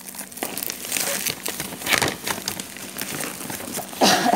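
Plastic parcel wrapping crinkling and crackling as hands pull and peel at it, with a louder rustle about four seconds in.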